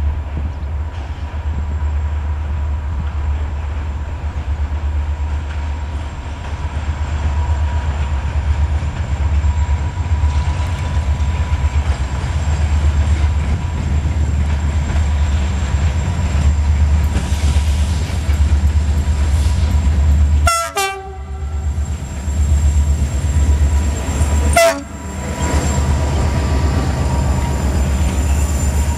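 CFR class 65 diesel-electric locomotive hauling a passenger train past, its engine rumbling steadily with wheel noise on the rails. Two short horn blasts come about two-thirds of the way through, about four seconds apart.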